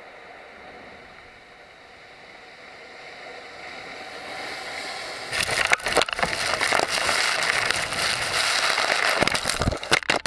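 A wave of water driven by a dynamite blast in a flooded quarry. A low rush builds up over the first few seconds, then turns into loud, jumbled crashing and splashing about five seconds in as the wave reaches the microphone.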